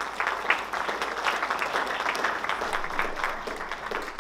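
Audience applauding: many hands clapping at once, steady, easing off slightly near the end.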